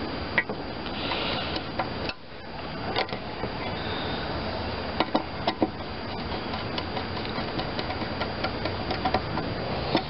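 Small irregular metal clicks and taps of a screwdriver and parts being worked on a small-engine carburetor, with several quick clicks close together near the middle and end, over a steady background hiss.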